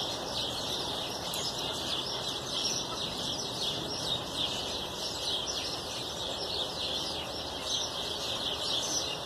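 Many small birds chirping together in a dense, unbroken chatter.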